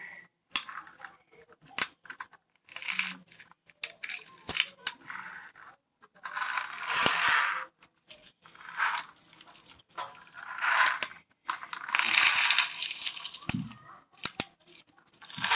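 Metal coins clinking and scraping together as a toy excavator's bucket is pushed through a pile of them, in a series of separate bursts about a second long with short pauses between.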